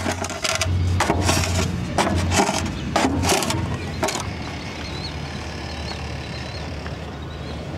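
Plastic scoop shovel scraping along a concrete path as it scoops up wet grass clippings, about five rough strokes in the first four seconds, then quieter. A steady low hum runs underneath.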